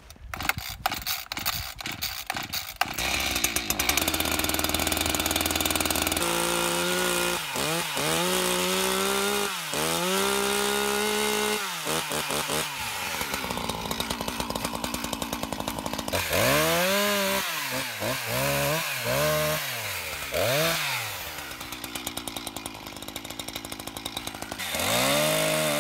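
Two-stroke chainsaw being pull-started: a few sharp cranking pulls, then the engine catches about three seconds in and runs, its throttle revved up and dropped back again several times.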